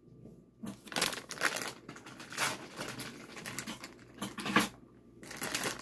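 Irregular rustling and light tapping of things being handled, in short bursts that start about a second in and stop near the end.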